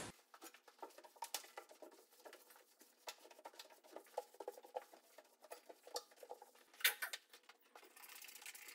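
Faint clicks and light knocks of things being handled on a kitchen stove and counter, with one louder click about seven seconds in. Near the end a steady hiss of cleaner sprayed from a trigger spray bottle.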